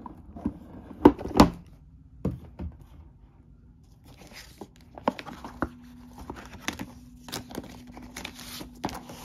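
Cardboard board-game box being opened: two sharp knocks as the lid comes off, then rustling and crinkling as the paper and cardboard contents inside are handled.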